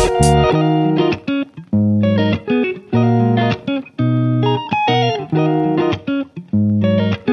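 Instrumental background music: a melody of short pitched notes in phrases, with brief breaks between them.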